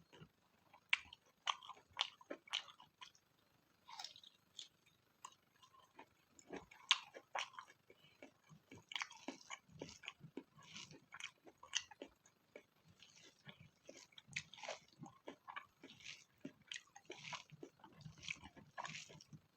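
A person chewing a mouthful of spicy pork close to the microphone: wet chewing and lip smacks mixed with sharp little crunches, several a second at an irregular pace, with a short lull about five seconds in.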